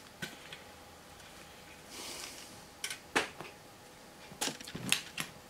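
Faint handling noises as wicking cotton is fetched: a soft rustle about two seconds in and a few small scattered clicks and taps.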